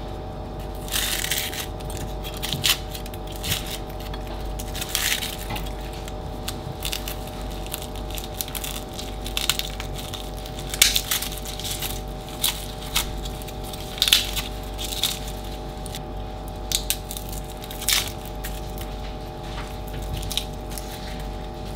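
Dry, papery onion and garlic skins crackling and tearing as they are peeled off by hand and with a small knife, in irregular short crackles and rustles. A steady hum of several tones runs underneath.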